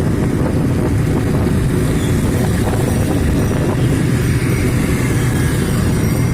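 Steady, loud low rumble of vehicle road noise with wind buffeting the microphone.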